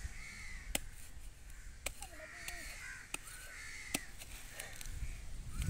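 Crows cawing repeatedly, mixed with a few sharp clicks as a sickle blade cuts through clear plastic sheeting.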